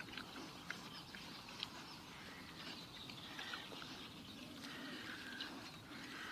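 Faint animal sounds: scattered short chirps and clicks over a steady background noise.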